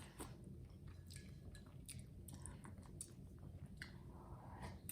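Faint chewing of Rice Chex cereal in milk: soft, scattered mouth clicks and crunches.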